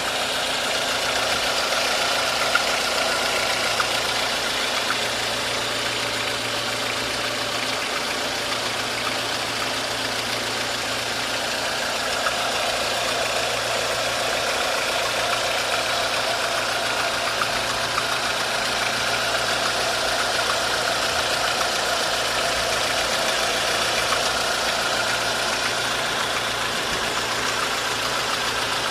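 A 1.4-litre 16-valve engine idling steadily with an abnormal noise. The noise persists after the tensioner and chain were checked and the accessory belt was removed.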